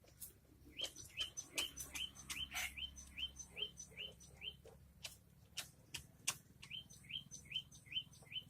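Short rising chirps from a bird or other small animal, repeated about three a second with a short break midway, and sharp clicks scattered between them.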